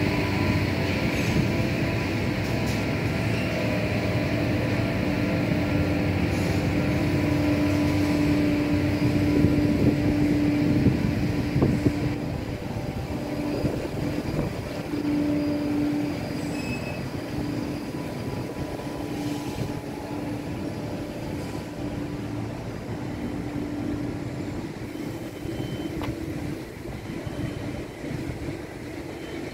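Steady mechanical drone with a low humming tone, louder for roughly the first ten seconds and then somewhat quieter.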